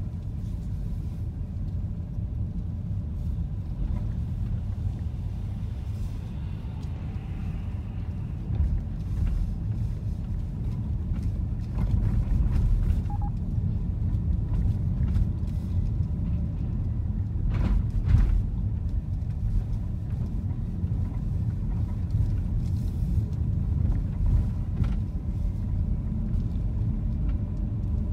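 Steady low rumble of a car on the move, with engine and tyre noise heard from inside the cabin. It grows a little louder about twelve seconds in, and a pair of sharp clicks comes about two-thirds of the way through.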